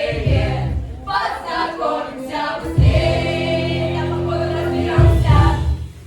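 A group of voices singing together in chorus, holding one long chord for about two seconds in the middle.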